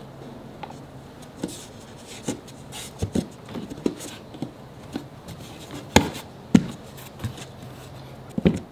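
Scattered light knocks, taps and rubs of hands pressing a plywood drawer bottom into a glued drawer box held in a strap clamp, with two sharper knocks about six seconds in.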